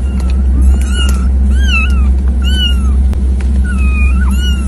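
A litter of kittens mewing: about five or six short, high mews from several kittens, each rising and falling in pitch, some overlapping, over a steady low hum.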